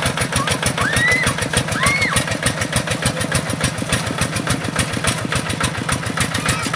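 Kubota RD85 single-cylinder diesel of a hand tractor running steadily under load, a rapid even chugging, as it drives the cage wheels through wet paddy mud.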